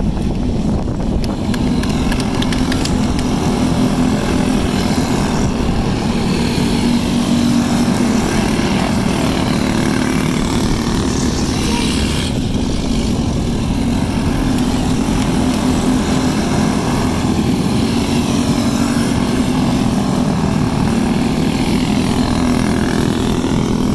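Several small dirt-track kart engines running together as the karts lap the dirt oval: a steady buzzing drone that swells as karts pass close.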